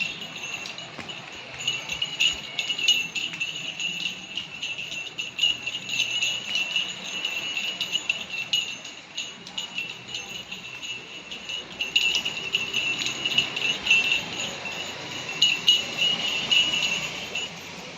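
A small bell jingling in quick, uneven shakes, the kind a bell on a running dog's collar makes, coming and going in bursts and stopping shortly before the end.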